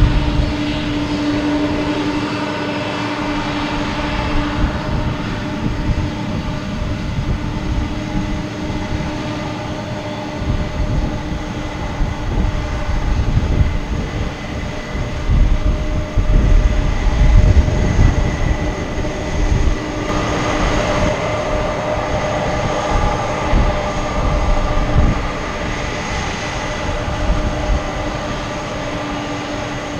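Boeing 747-400F freighter's four jet engines running at low taxi power: a steady whine of several held tones over a rough low rumble. The engine noise swells briefly about two-thirds of the way through, and again a little later.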